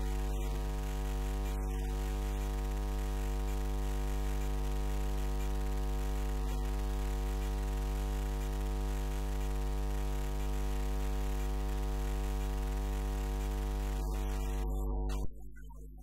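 Steady electrical mains hum: a deep, unchanging buzz with overtones stacked above it, which drops away sharply about a second before the end.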